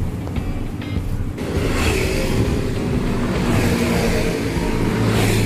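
Road traffic driving past on a busy street: engine rumble, with the noise swelling about a second and a half in as vehicles come closer.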